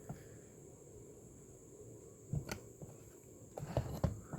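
Faint clicks and light scrapes of a small tool working the metal retaining tabs around the face of an analog dashboard clock. There is one click about two and a half seconds in and a few more near the end.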